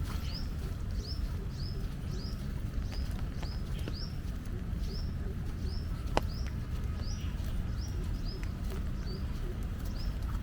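A bird repeating a short, high chirp over and over, about two a second, over a steady low rumble. One sharp tick comes about six seconds in.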